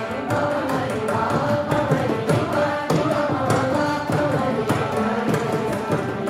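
Carnatic group singing in unison, a kriti sung by many voices with veena and mridangam accompaniment, the mridangam's strokes sounding steadily under the voices.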